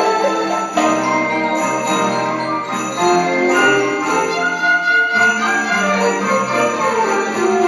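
High school orchestra playing a lively piece with sleigh bells jingling throughout over the ensemble.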